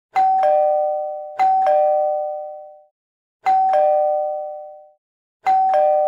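A two-note ding-dong chime like a doorbell, a higher note followed by a lower one, sounds four times. The first two come close together and the last two about two seconds apart, and each rings out for over a second.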